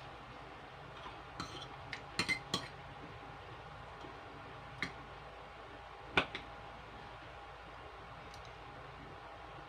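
Scattered sharp clinks and taps of tableware, a quick cluster about two seconds in and the loudest single clink about six seconds in, over a faint steady room hum.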